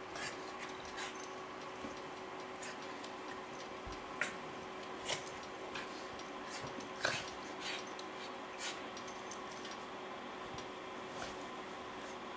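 Two small dogs play-fighting: brief yips and whines among scuffling and clicking sounds, the sharpest about four and seven seconds in.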